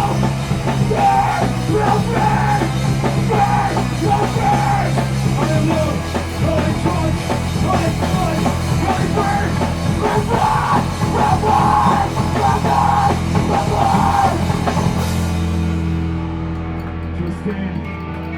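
Loud live heavy rock band playing: distorted guitars, bass and drums. About fifteen seconds in, the drums and cymbals stop, leaving guitar and bass ringing on.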